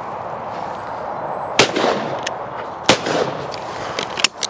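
Two shots from a Yildiz Pro over-and-under shotgun, fired about a second and a half apart at a pair of clays with Fiocchi 28 g fibre-wad cartridges. Each report is sharp and rings on briefly. A few light clicks follow near the end.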